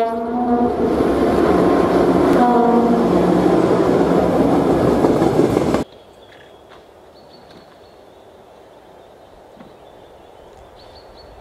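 ST43 diesel locomotive (Romanian-built 060DA with a Sulzer engine) passing close with a train of wagons. Its horn sounds, ending about half a second in, with a second short blast about two and a half seconds in, over loud engine and wheel-on-rail noise. That noise cuts off abruptly about six seconds in, leaving quiet outdoor background with a few faint high chirps.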